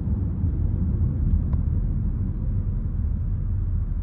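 A car driving, heard from inside the cabin: steady low engine and road rumble.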